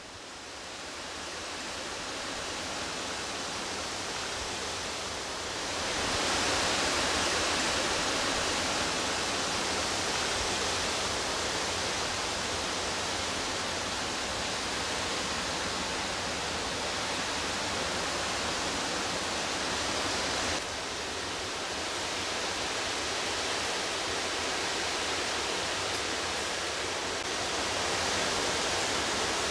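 Steady, even hiss of outdoor ambience, with no distinct calls or clicks. It fades up at the start, gets louder about six seconds in, and drops a little about twenty seconds in.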